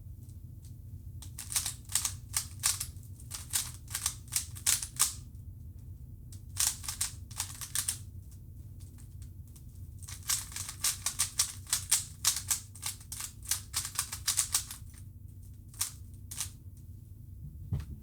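A standard 3x3 Rubik's Cube being turned quickly by hand: runs of sharp plastic clicks as the layers snap round, three main runs with short pauses between them.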